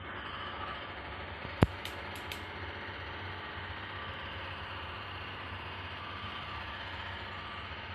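Steady hiss and low hum of background noise, with one sharp click about a second and a half in followed by a few faint ticks.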